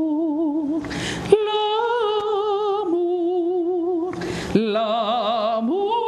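A woman singing unaccompanied in a classical, operatic style. She holds long notes with a wide vibrato and takes a breath twice between phrases.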